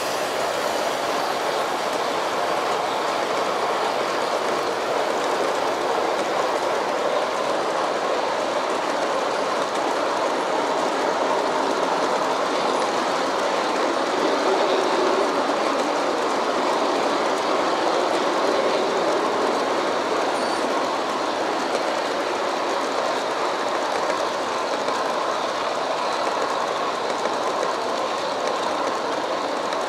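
A long G-scale model freight train's cars rolling steadily past down a grade on outdoor garden-railway track: a continuous, even noise of many small wheels running on the rails.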